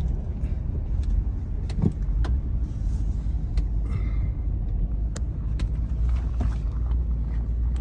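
Low, steady rumble of a vehicle's engine and tyres heard from inside the cabin as it drives slowly through a parking lot, with a few light clicks and rattles.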